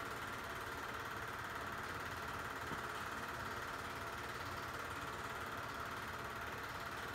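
Film projector running, a steady mechanical whirr and fine rapid clatter that does not change.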